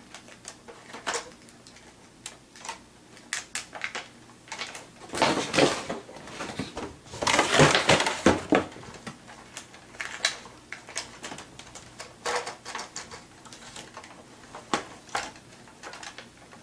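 Plastic clicks and rattles of a Bruder toy fire truck being handled, with two longer, louder rustling scrapes about five and seven seconds in.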